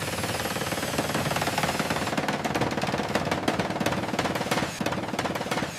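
A power tool hammering rapidly and steadily on a construction job, a dense run of sharp impacts.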